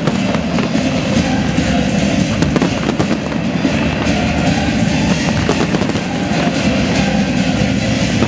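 Fireworks display: many aerial shells bursting and crackling in quick succession over a steady low rumble.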